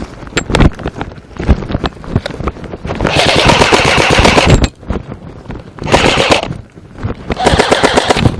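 Airsoft gun firing on full auto: a long burst of about a second and a half about three seconds in, a short burst near six seconds, and another burst near the end. Before the first burst, scattered sharp clicks and thuds.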